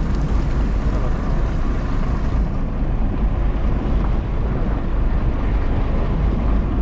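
Wind buffeting the microphone on a sportfishing boat out at sea: a steady rumble with the wash of water around the hull.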